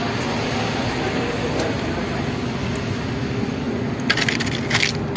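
A steady low background rumble in an open parking area, broken about four seconds in and again near the end by two short clusters of light, quick clicks.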